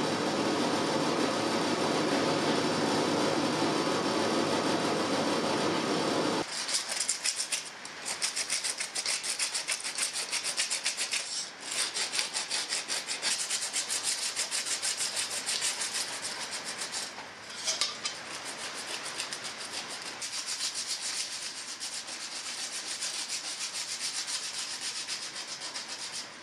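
A steady machine hum for about the first six seconds cuts off. A drilled copper sheet is then rubbed by hand with an abrasive in rapid back-and-forth strokes, with two short pauses, to smooth the freshly drilled holes.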